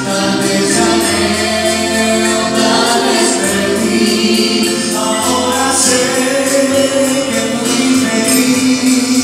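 A man and a woman singing a slow melody together through handheld microphones, with held notes and steady low bass notes underneath.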